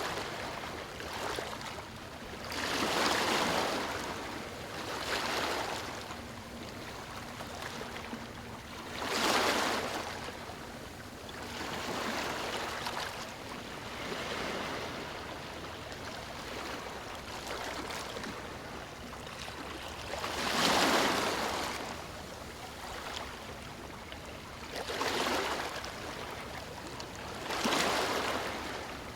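Waves breaking on stones: a steady wash of water with a surge of rushing hiss every few seconds as each wave comes in, about eight in all.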